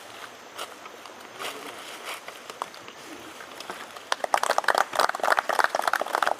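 A small group of people clapping, beginning about four seconds in after a few seconds of faint outdoor background with scattered small sounds.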